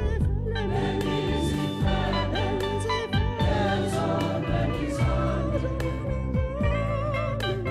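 Church choir singing a gospel hymn in several voices, over low sustained notes and a steady beat of sharp strikes.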